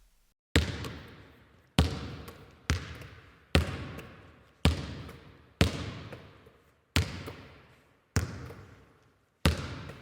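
A series of nine sharp impacts, roughly one a second and slightly uneven, each trailing off in an echoing fade.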